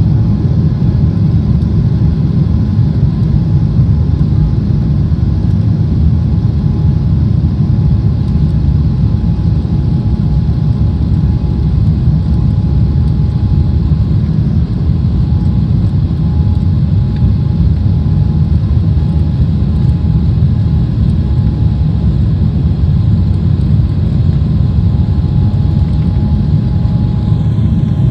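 Boeing 777 jet engines at takeoff thrust heard from inside the cabin, a loud steady rumble with a faint steady whine during the takeoff roll.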